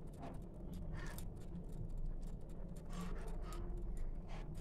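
Hands squeezing and rolling a wet grated bottle gourd and gram-flour kofta mixture into a ball: faint soft squishes and light clicks scattered through, over a low steady hum.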